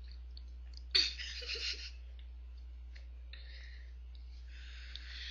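Steady low electrical hum and faint hiss of room tone. About a second in comes one short, breath-like noisy puff.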